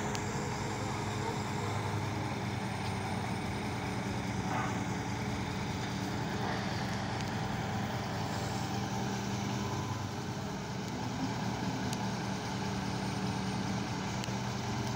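Crane's engine running steadily with a low, even hum while a chiller unit hangs from its hook.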